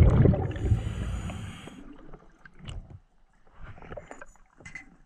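Scuba regulator underwater: a loud rush of exhaled bubbles that fades away over about two seconds, followed by a quieter second burst of bubbling and a few small clicks.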